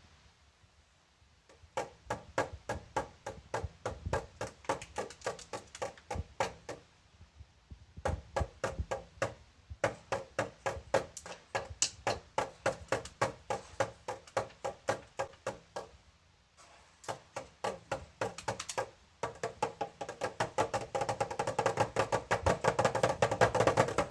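Rapid, even, wood-like tapping, about five taps a second, coming in runs broken by short pauses, growing denser and louder near the end.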